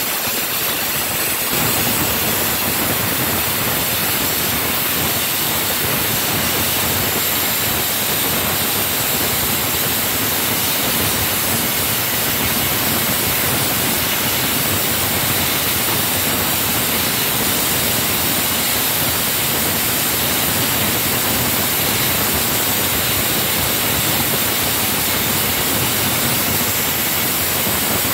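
Handheld gas blowtorch burning with a steady hiss while it heats a rust-seized front brake caliper bolt to loosen it.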